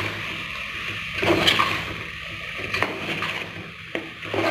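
Metal spoon stirring a thick, wet curry of moringa drumstick pods, chicken and elephant foot yam in a steel pot: sloshing with a few clinks of the spoon against the pot.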